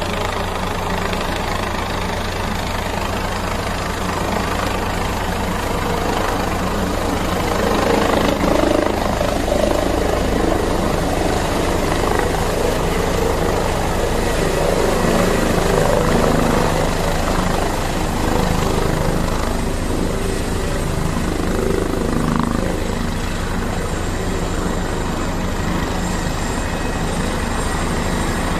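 Helicopter running, a steady rotor and engine noise that swells a little around the middle.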